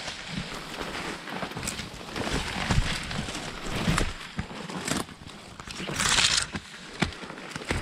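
Pushing on foot through dense leafy undergrowth: leaves and branches brushing and rustling against the body, with footsteps and a few sharp snaps along the way.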